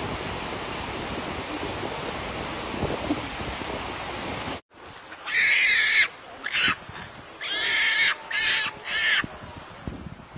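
A steady rushing noise cuts off abruptly a little under halfway through. It is followed by about five harsh crow caws in quick succession over some four seconds.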